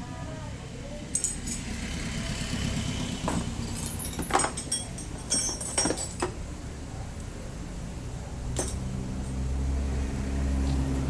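Metal clinks and jingles of keys or tools, several sharp clicks a few seconds apart. Near the end a Yamaha Mio Soul i 125 scooter engine is running at a steady idle.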